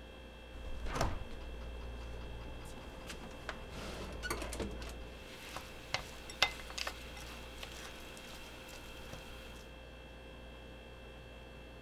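Wooden chopsticks stirring minced pork filling in a ceramic bowl: a soft thud about a second in, wet scraping and stirring around four seconds in, then a few sharp clicks of the chopsticks against the bowl. A faint steady hum runs underneath.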